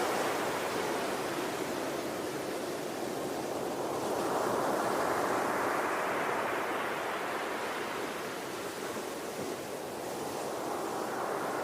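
Ocean waves surging on the shore as a steady wash of surf. One swell builds about four seconds in and ebbs, and another rises near the end.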